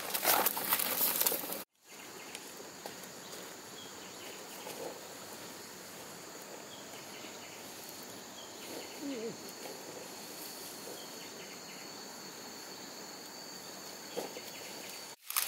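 Plastic sack and flattened corn leaves rustling underfoot for the first couple of seconds, then, after an abrupt break, insects trilling steadily in two constant high pitches.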